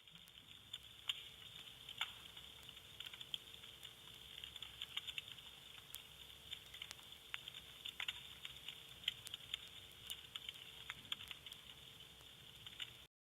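Vinyl record surface noise: a steady hiss with irregular crackles and pops over a faint steady hum. It cuts off suddenly just before the end.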